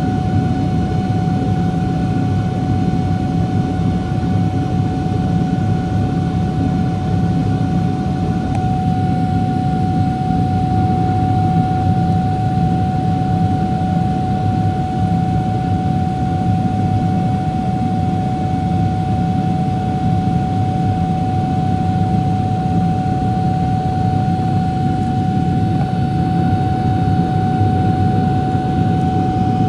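GE90 turbofan engines of a Boeing 777-200LR heard from inside the cabin after takeoff: a steady deep rumble with a steady whine over it.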